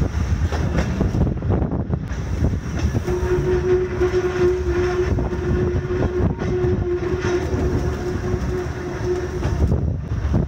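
Two-axle narrow-gauge electric railway car running along the track, its short-wheelbase wheels rumbling and clattering over the rail joints. A steady tone joins in about three seconds in and stops shortly before the end.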